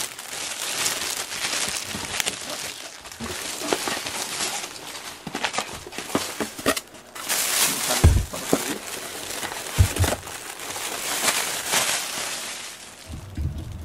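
Clear plastic wrapping crinkling and rustling as it is pulled off a cardboard box and crumpled by hand, with two dull thumps about eight and ten seconds in. It dies down near the end.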